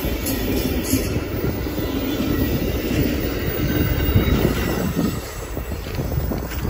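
Amtrak Wolverine passenger cars rolling past close by, their wheels running on the rails with a steady rumble that eases off about five seconds in as the last car goes by.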